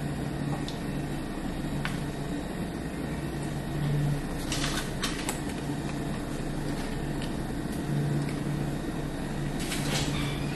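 Steady low mechanical hum of background appliances, with a few faint clicks, a small cluster about halfway through and another near the end.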